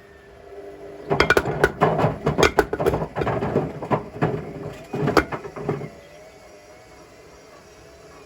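Bricks tumbling inside the drum of a Hotpoint WMFUG742 front-loading washing machine: a run of hard, irregular knocks and clatters for about five seconds as the drum turns, then only a low background hum.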